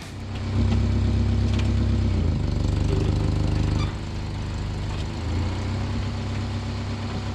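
1987 Pontiac Acadian's four-cylinder engine running with a loud exhaust leak just ahead of the catalytic converter. It gets louder about half a second in and drops back somewhat near the middle.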